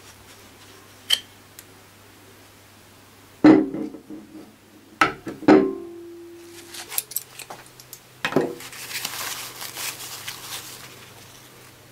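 Sharp metal knocks, several with a short ringing tone, from the pliers and the drill's B12 taper chuck as the chuck is worked off the spindle. Paper towel rustles near the end as the spindle gear is wiped.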